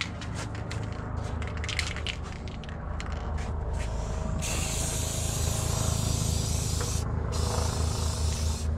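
Aerosol can of gold spray paint spraying: several short spurts at first, then from about four seconds in a long continuous hiss, broken briefly near seven seconds, over a low steady hum.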